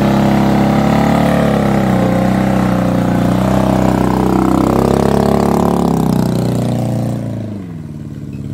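Suzuki Jimny Katana's engine held at high revs as the little 4x4, in two-wheel drive, churns through muddy ruts, its pitch wavering slightly; near the end the revs drop away as the driver eases off.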